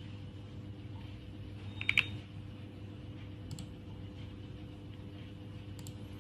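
Clicks at a computer: a sharp double click about two seconds in, the loudest sound, then two fainter double clicks later on. A steady low electrical hum runs underneath.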